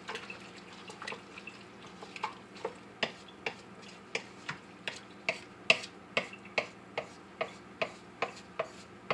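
Wooden spoon knocking against the side of a stainless steel pot while stirring a thick sauce: short sharp clicks, a few at first, then a steady two or three a second.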